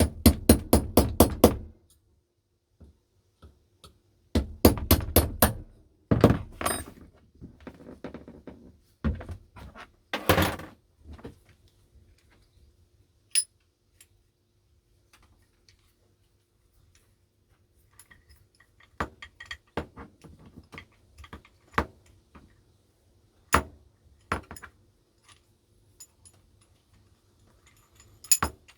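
Quick runs of sharp knocks on metal, several strikes a second, as a rusty old small bench vise is worked apart, probably hammered. Later come only scattered lighter clinks and taps of metal parts being handled.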